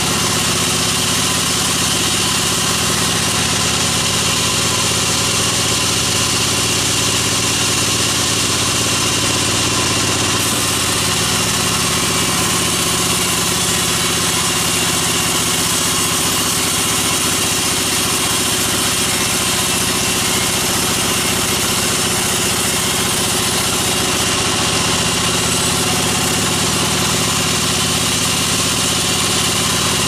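Large band sawmill running steadily as a log on its carriage is fed through the blade: a loud, constant mechanical hum with no breaks or changes.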